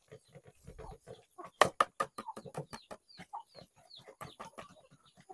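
Bangkok gamefowl chickens clucking in a rapid run of short calls, with a few short high falling peeps in the middle.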